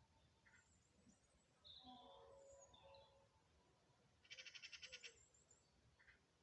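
Faint bird calls: scattered short chirps and whistles, with a quick rattling series of about a dozen clicks a little past the middle.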